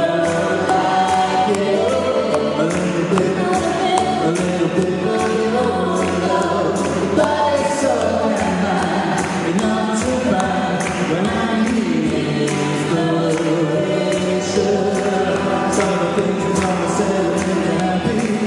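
A live band performing a song, with singing over a steady percussion beat.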